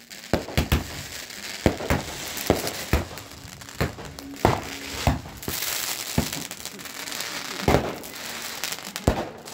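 Small consumer fireworks going off: a string of sharp bangs and pops at irregular intervals, with crackling in between.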